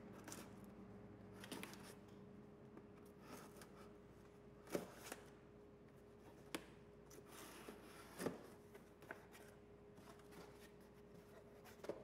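Knife slitting the packing tape on a cardboard box, with faint cardboard rustles and scattered sharp taps and scrapes as the flaps are worked open; the loudest clicks come about five and eight seconds in.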